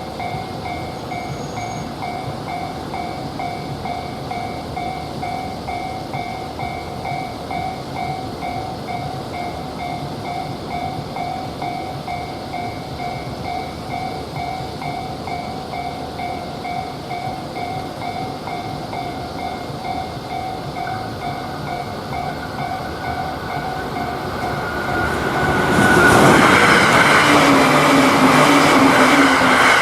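Japanese level-crossing warning bell ringing in a steady, evenly repeated two-tone ding. About 25 seconds in, a train arrives and passes loudly, its wheels and running noise drowning out the bell.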